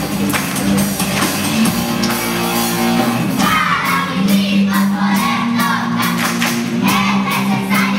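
Live percussion music from a children's ensemble: many quick hits over a steady low note, with young voices coming in over the top from about three and a half seconds in.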